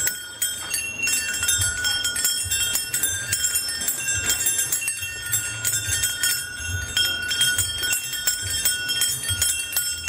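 String of small brass bells, graduated in size on a braided cord, swinging and ringing continuously with many overlapping high tones and frequent little strikes, like a wind chime.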